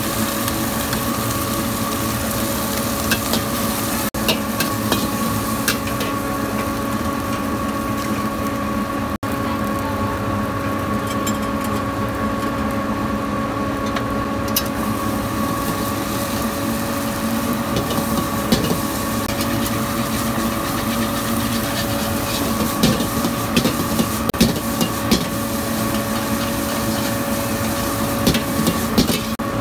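Egg fried rice frying in a carbon-steel wok: sizzling, with a metal spatula scraping and knocking against the wok over a steady machine hum. The scrapes and knocks come more often in the last several seconds as the rice is stirred and tossed.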